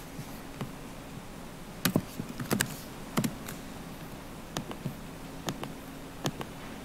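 Irregular clicks and light knocks of hands working at a laptop and a cardboard box on a desk, bunched about two to three seconds in and then spaced a second or so apart, over a faint steady hum.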